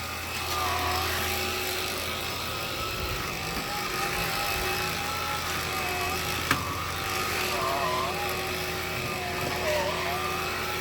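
Black & Decker cordless lithium pet vacuum running steadily, its motor whine wavering slightly in pitch as it is pushed over the floor. A sharp click about six and a half seconds in.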